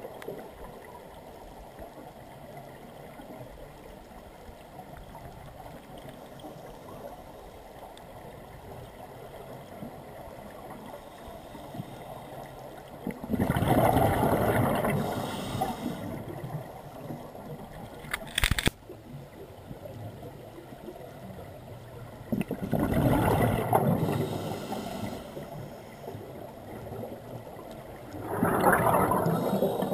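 Underwater ambience from a diver's camera: a steady low hiss, broken three times by loud rushes of exhaled scuba regulator bubbles, each lasting two to three seconds. One sharp click falls between the first and second rushes.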